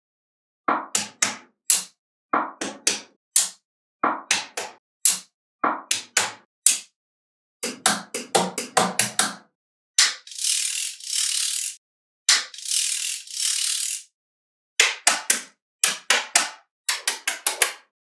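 Magnetic balls clicking and snapping together in quick clusters of sharp clicks. A little past the middle come two stretches of dense rattling hiss, about two seconds each.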